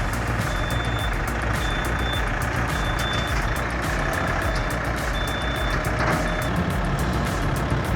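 A heavy machine's reversing alarm beeping about once a second, each beep a single high tone, over the steady running of its diesel engine.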